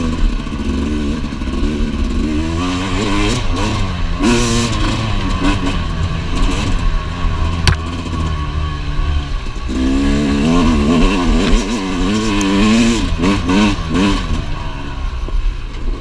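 2017 Yamaha YZ250X's 250 cc two-stroke single-cylinder engine under way on a dirt trail, its pitch rising and falling again and again as the throttle is worked, over a rattle of the bike on rough ground. One sharp click about halfway through.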